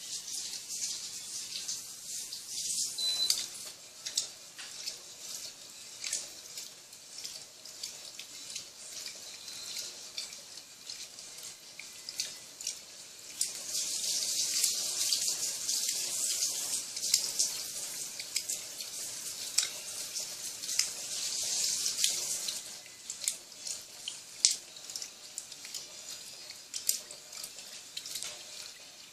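Water running and splashing inside the tub of a Turbo Economia 10 kg (LTD11) top-loading washing machine loaded with two blankets, with scattered small drips and clicks. The water grows louder for several seconds in the middle.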